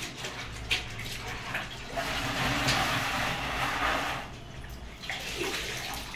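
A floor cloth being swished and sloshed in a plastic bucket of water, loudest about two to four seconds in, then wrung out over the bucket with water dripping back in near the end.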